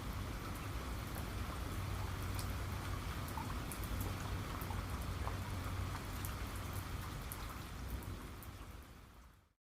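Steady rain falling, with scattered sharp drop ticks over a low rumble; it fades out over the last second or so and cuts to silence.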